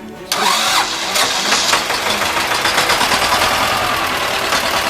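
T-25 tractor's two-cylinder air-cooled diesel engine running, cutting in abruptly a moment in and holding loud with a rapid, even beat, on a trial run after a clutch release-bearing repair.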